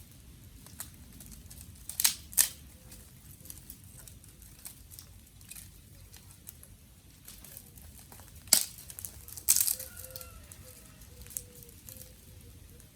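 Dry twigs and sticks cracking: a handful of loud, sharp snaps, twice close together about two seconds in and again around eight and nine seconds, with light crackling and small ticks in between.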